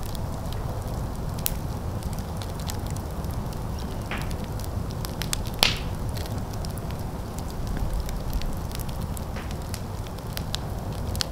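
Open fire burning, crackling with many small pops over a steady low rumble, and one louder pop a little past halfway.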